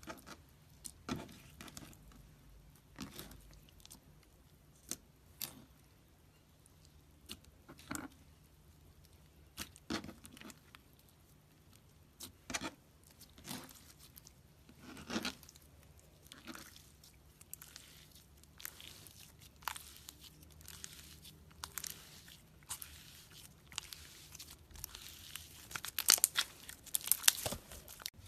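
Slime being squished and pulled apart by hand, giving short crackling pops spaced irregularly. They grow denser and louder near the end.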